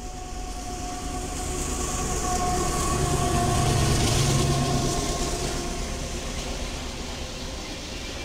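A train passing the trackside, its rumble building to a peak about four seconds in and then fading away.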